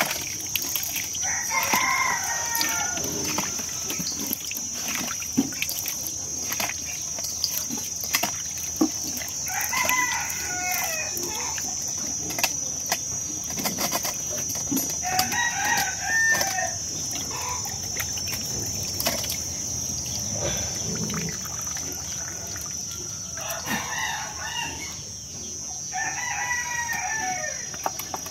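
A rooster crowing five times, each crow a second or two long, several seconds apart.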